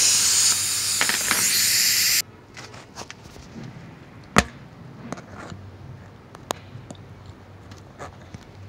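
Loud steady hiss that cuts off suddenly about two seconds in. Scattered light clicks and one sharper knock follow as tire-repair hand tools are handled.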